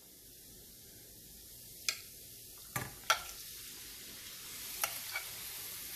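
Marinated mutton liver going into a pan of spices fried in oil: a low sizzle that slowly grows louder, with about five sharp clicks of a utensil against the pan.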